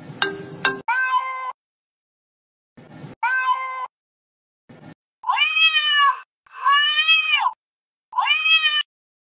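Recorded domestic cat meows played back as fake-call audio: about five separate meows, each a rising-then-falling call, with short gaps of silence between them. Brief crackly noise comes just before some of the meows.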